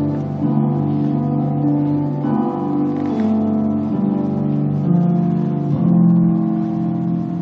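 Instrumental music with slow, held chords that change every second or two.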